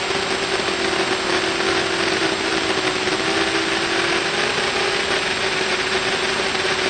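FPV quadcopter's electric motors and propellers buzzing steadily in flight, heard through its onboard camera over a steady hiss. The pitch dips a little about two seconds in and comes back up about four and a half seconds in.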